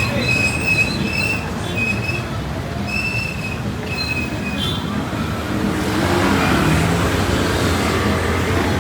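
Street traffic with a steady low rumble of vehicles. A short, high-pitched squeak repeats about once or twice a second, stopping about four and a half seconds in. A louder rush of passing-vehicle noise then swells from about six seconds in.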